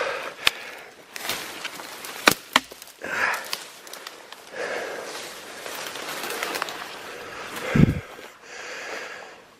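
Footsteps pushing through dense forest undergrowth, with leaves and branches brushing past and a few sharp twig snaps.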